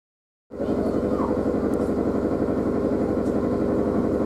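London Metropolitan Electric Tramways tramcar 331 running, heard from its driver's platform: a steady mechanical hum with a fast, even pulse and a steady tone, cutting in suddenly about half a second in.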